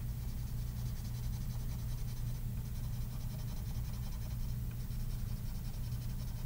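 Graphite pencil shading on paper in rapid back-and-forth scratching strokes as checkerboard squares are filled in, stopping briefly about a third of the way in and again later. A steady low hum runs underneath.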